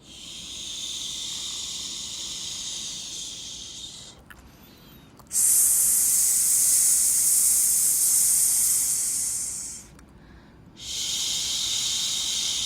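Long shushing 'shhh' hisses, one after another, each lasting several seconds with a short break between. The middle one, from about five to ten seconds in, is the loudest.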